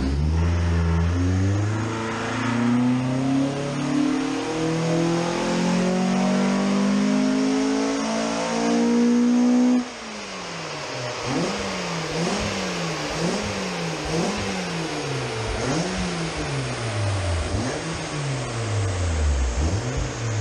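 Ford Focus ST170's two-litre four-cylinder, breathing through individual throttle bodies and a custom 2.5-inch exhaust, on a full-throttle rolling-road power run: the revs climb steadily for about ten seconds. Then the throttle shuts suddenly, the sound drops, and the engine and rollers wind down, falling in pitch.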